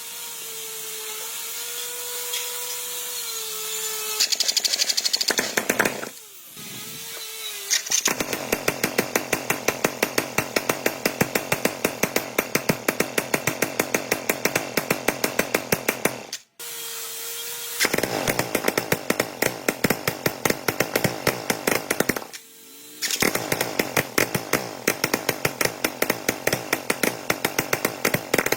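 Electric power tool working metal: a steady motor whine while it spins free, then long stretches of rapid, even pulsing as it bites into the work, broken twice by short spells of free-running whine.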